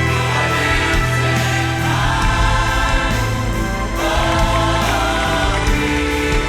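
Choir singing a Christian worship song with band accompaniment.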